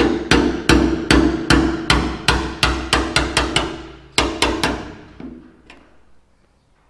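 Hammer striking the metal locking ring of a Land Rover fuel tank's sender unit to knock the stuck ring round: about a dozen quick ringing blows, roughly three a second, a short pause, three more, then a couple of lighter taps.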